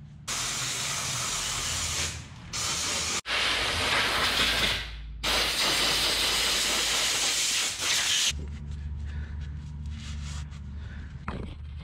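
Compressed-air blow gun hissing in four bursts with short breaks as the dozer's transmission filter is blown out over a drum, stopping about eight seconds in. A low steady hum follows.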